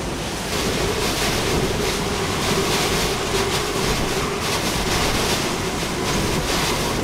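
Hurricane-force wind, gusting around 80 mph, with driving rain. It makes a steady, loud roar that swells in gusts and buffets the microphone.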